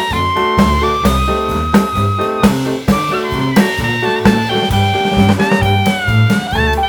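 Background jazz/swing music with saxophone or brass melody over a walking bass and a steady beat.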